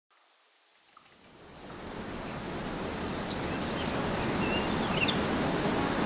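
Rushing river water over rapids fading in gradually, with a few small bird chirps above it.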